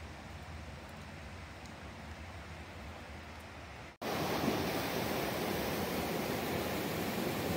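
Quiet outdoor ambience with a low rumble, broken by an abrupt edit cut about four seconds in, after which a louder, steady rushing hiss takes over.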